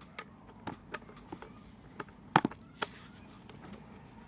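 Scattered sharp clicks and knocks from a cordless impact wrench being handled, the loudest about two and a half seconds in.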